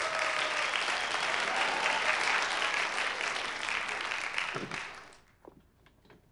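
Audience applause as a guest is welcomed on, fading away about five seconds in.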